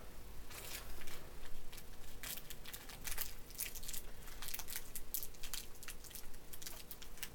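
Irregular light clicks and scratchy rustles of small screws and plastic parts being handled and screwed in, as the landing gear is fastened to a DJI Phantom 1's plastic body.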